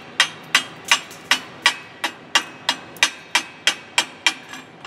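Chipping hammer striking a 7018 stick-weld bead in quick, even blows, about three a second, with sharp metallic clicks, knocking off the thick slag.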